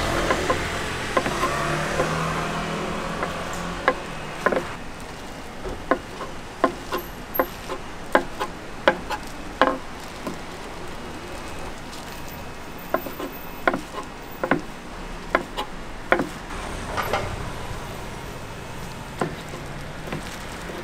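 Traffic rumble at first, then a knife knocking on a wooden cutting board in a run of sharp strokes, roughly one a second with a short pause midway, as sundae is sliced.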